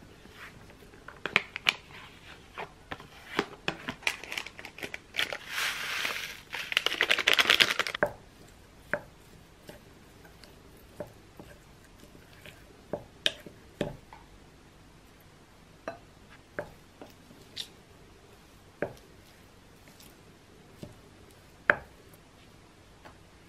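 A paper seasoning sachet crinkling and rustling as rice seasoning flakes are shaken from it into a glass bowl, loudest for a few seconds about five seconds in. After that, a wooden spoon mixes rice in the glass bowl and now and then gives a sharp knock against the glass.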